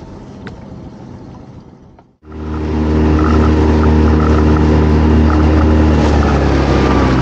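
A few light knocks and handling noise first, then after a sudden cut about two seconds in, a small fishing boat's engine running steadily at speed, with water rushing along the hull.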